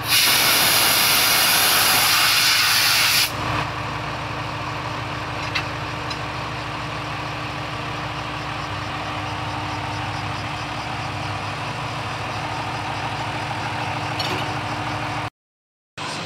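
A loud hiss of compressed air from the coupled railcars for about three seconds. Then the steady idling of the diesel railcars, a JR Shikoku 1000 series and a Tosa Kuroshio Railway car, with a couple of faint clicks. The sound cuts off abruptly near the end.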